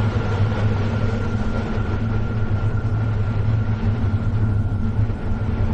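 Steady low rumbling drone with a thin high tone held above it, part of an eerie haunted-house ambience.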